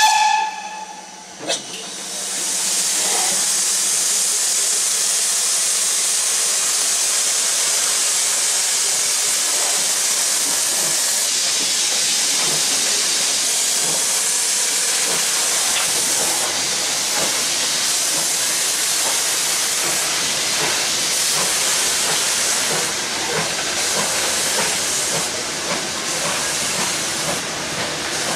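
Steam locomotive whistle blowing briefly, then, about two seconds in, a loud steady hiss of escaping steam as the locomotive starts away.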